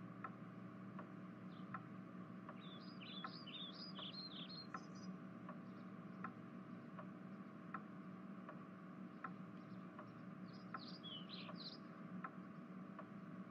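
Faint background room tone in which a small bird chirps in two quick runs, a few seconds in and again near the end, over a faint steady ticking about every three-quarters of a second.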